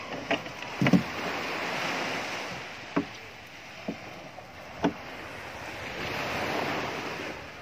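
Sea surf washing on a beach, swelling twice, with wind on the microphone. Five or so sharp clicks or snaps come from close by, spread over the first five seconds.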